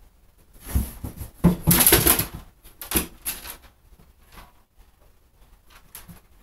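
Cat jumping down into a bathtub: a flurry of clattering knocks and scrabbling on the tub about a second in, lasting a couple of seconds, then only a few light clicks as it noses at the scattered dry kibble.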